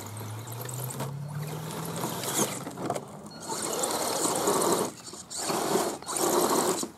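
Axial SCX10 RC crawler's electric motor whining and rising in pitch as the truck climbs the mud mound, then several bursts of wet mud churning and spattering under its spinning tyres.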